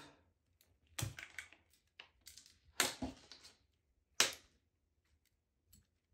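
Scattered clicks, taps and short rustles of fishing tackle being handled on a tabletop mat: monofilament line, a float, a swivel and a hook. The sharpest tap comes about four seconds in.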